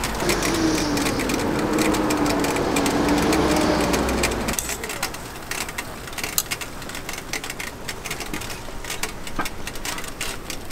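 Low street-traffic rumble with an engine hum for the first few seconds. It gives way suddenly to quick, irregular clicks and taps of steel tongs against a steel griddle and each other.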